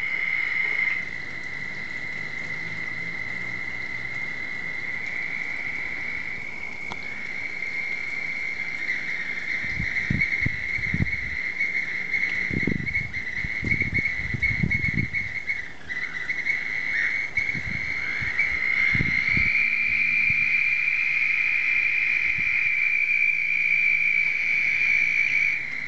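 A chorus of frogs trilling after a long rain, a continuous high-pitched drone. A few low rumbles come through in the middle.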